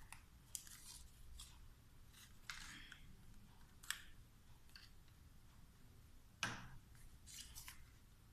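Faint, scattered rustles and clicks of paper being handled, seven or so short sounds, the loudest about six and a half seconds in.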